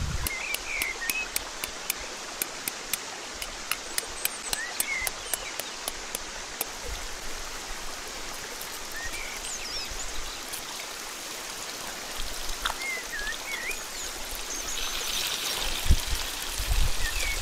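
Sausage slices sizzling in hot oil in a frying pan, with crackling pops for the first six or seven seconds. Near the end an ostrich egg is dropped into the pan with a knock, and the sizzle grows louder and brighter.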